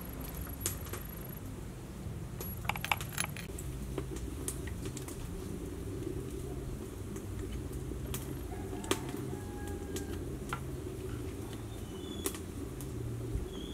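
Metal spoon scraping and tapping in a plastic bowl of cooked fish, picking the flesh off the bones: scattered light clicks, a small cluster of them about three seconds in, over a steady low background hum.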